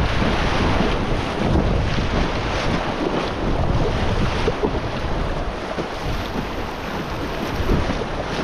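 River riffles rushing and splashing around an inflatable kayak as paddle blades dip into the water, with wind buffeting the microphone.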